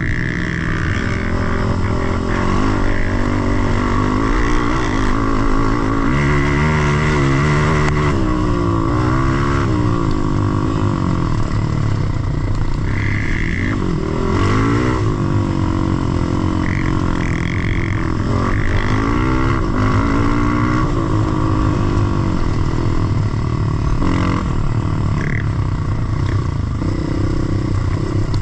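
Dirt bike engine running under way, its pitch repeatedly rising and falling as the throttle is opened and closed.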